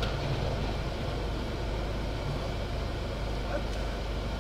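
Steady low rumble of road vehicles heard from inside a car stopped in traffic, with no distinct events.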